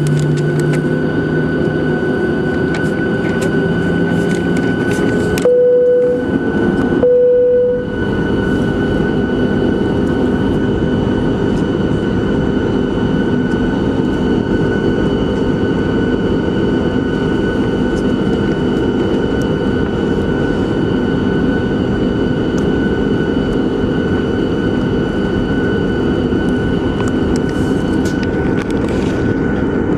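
The CFM56-7 jet engines of a Boeing 737-700 running at taxi power, heard from inside the cabin: a steady rumble with a high fan whine. A short steady tone sounds twice, about six and seven seconds in.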